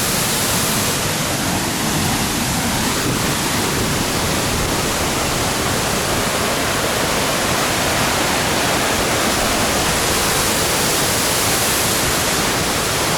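Waterfall in rainy-season flood, a loud, steady roar of falling water.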